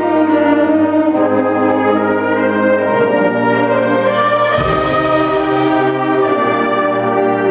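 Wind band playing live in a large church: brass and woodwinds holding sustained chords, with a loud crash from the percussion about halfway through that rings on.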